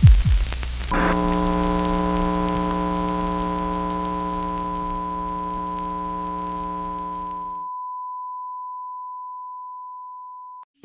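A short burst of TV-style static with low glitchy thuds, then an electronic drone of several held tones with a high pure tone on top, slowly fading. The lower tones drop out about three-quarters through, leaving only the single high steady beep, which cuts off suddenly near the end.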